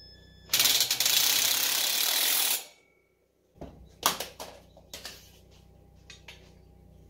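A handheld power tool grinds against metal for about two seconds, starting sharply and fading out. After a break come several sharp knocks and clanks.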